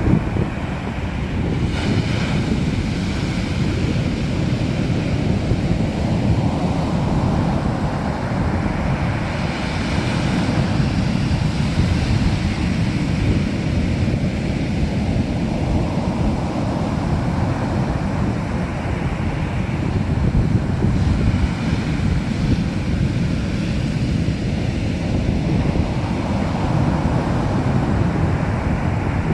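Sea waves breaking and washing onto the shore, the hiss of surf swelling every several seconds, over a heavy low rumble of wind on the microphone.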